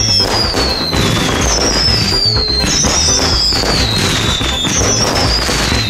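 Fireworks going off in quick succession: constant bangs and crackling, with four high-pitched whistles that each fall in pitch over about a second.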